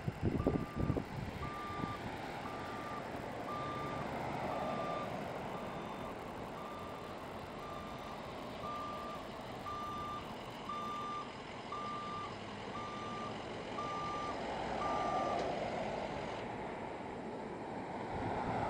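A vehicle's reversing alarm beeping at one pitch, about once a second, over the steady noise of traffic on a busy road; the beeps stop about three-quarters of the way through. A few low knocks in the first second, and passing vehicles swell the traffic noise twice.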